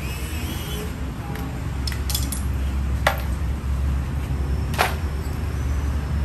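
Two sharp metallic clinks of steel hand tools, about three and five seconds in, over a steady low hum.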